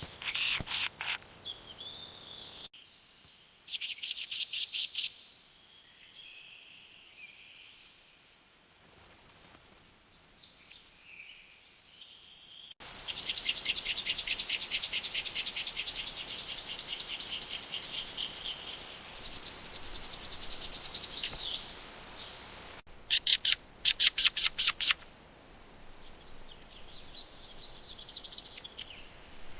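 Wild birds calling with high, rapid trills and chirps, in short segments that change abruptly every few seconds; the loudest trills come in bursts about two-thirds of the way in.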